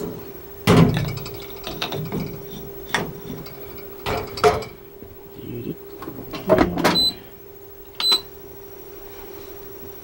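Knocks and clatters as the door of a Haier HDC1804TW countertop dishwasher is handled, swung shut and latched. Two short electronic beeps follow from its control panel as buttons are pressed. A steady low hum runs underneath.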